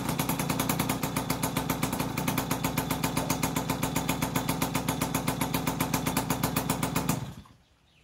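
Sachs two-stroke moped engine running steadily with an even, rapid pulse, then cut off about seven seconds in. It runs on an original Bing carburettor with a size 50 main jet; the carburettor was the cause of the earlier failure to run.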